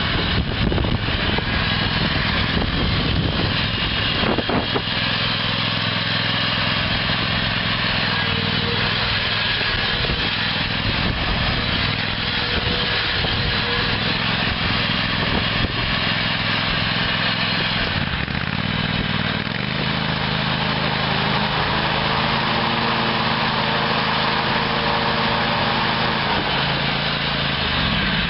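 A small gasoline engine running steadily, with a change in its tone about two-thirds of the way through.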